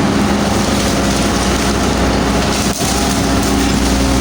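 Hydraulic excavator's diesel engine running steadily at working revs, with a brief dip about two-thirds of the way through.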